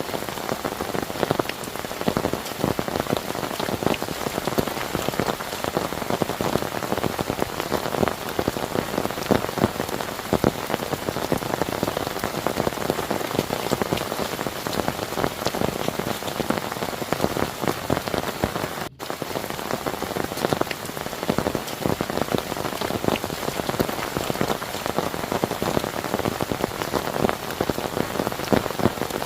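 Heavy rain falling steadily, a dense patter of drops hitting a surface, with a momentary break about two-thirds of the way through.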